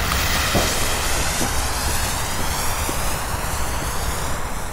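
Lit fireworks fuse hissing steadily as it burns and spits sparks, with a low rumble underneath.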